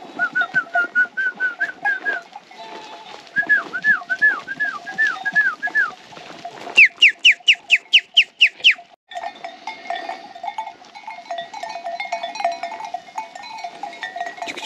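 A songbird calls in fast runs of short repeated notes, about five a second. First comes a run of level notes, then a run of curved notes, and about seven seconds in the loudest run, quick falling notes. Under it runs the steady ringing and clinking of a grazing sheep flock's bells.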